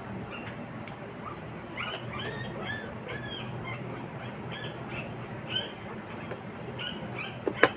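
A small bird chirping over and over in quick short calls, with a steady low hum behind it. Sharp metallic clicks come about a second in and again near the end.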